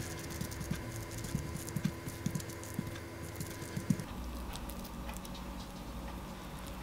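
Metal spoon spreading and patting spicy tuna onto rice over kimchi leaves on a wooden cutting board: soft, irregular taps and scrapes that stop about four seconds in.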